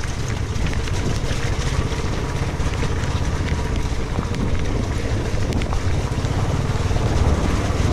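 Motorcycle engine running steadily under way over a rough gravel and dirt track, with wind noise on the microphone and scattered small clicks and knocks from the rough surface.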